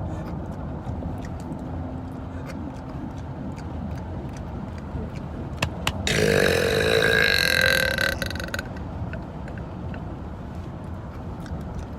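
A man's single long, loud burp starting about six seconds in and lasting around two and a half seconds, over the steady low rumble of a car.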